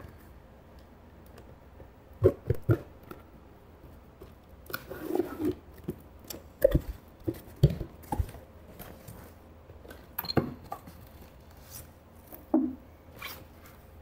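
Cardboard carton being opened by hand: a knife slitting the packing tape, then the flaps pulled open and the packing inside handled, in scattered knocks, scrapes and rustles.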